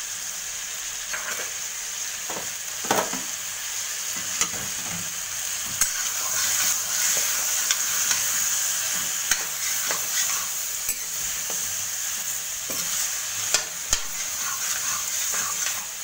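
Tomatoes, dates and freshly added jaggery sizzling in a little mustard oil in a metal wok as a spatula stirs them. A steady high hiss runs throughout, broken by scattered clicks and scrapes of the spatula against the pan. This is the stage where the jaggery is melting into the chutney.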